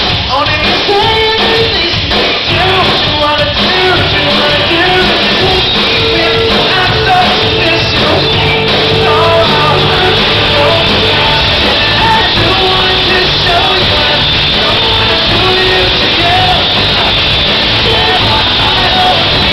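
Live rock band playing loud with electric guitar, bass and drums, and a lead vocal singing over them.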